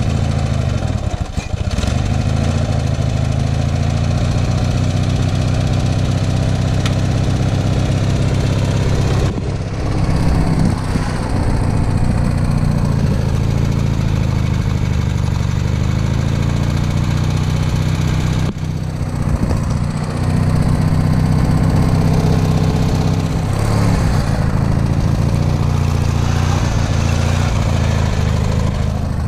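Small engine of an off-road lawn tractor running loud and steady as it crawls over rough ground, the note dipping briefly and recovering a few times.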